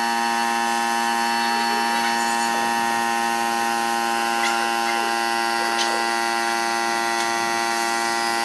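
A small electric motor running at a steady speed: a constant buzzing whine that holds one pitch throughout.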